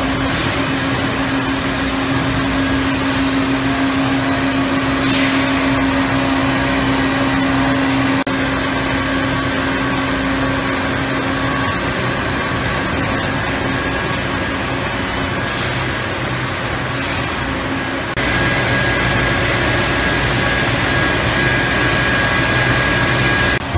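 Steady hum and hiss of running industrial machinery around a large injection molding machine, with a constant low tone. About 18 s in the noise steps up and a higher steady whine takes over.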